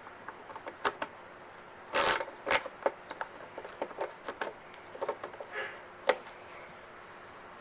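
Irregular small clicks and taps of the plastic parts of a VTech DX2 kids' watch being handled and fitted together, with a louder pair of knocks about two seconds in.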